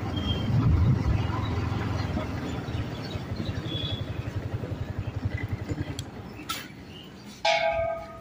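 Motorcycle engine running with wind rush while riding, then easing off into a quick, even throb as the bike slows and rolls to a stop. A brief pitched sound starts near the end.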